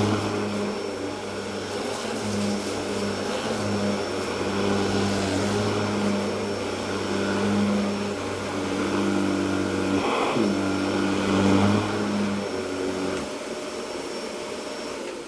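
Electrolux UltraPerformer canister vacuum with a Miele SEB 216-3 powerhead running on low-pile carpet, picking up rice and cat litter: a steady motor whine over a low hum. The low hum stops about two seconds before the end while the whine carries on.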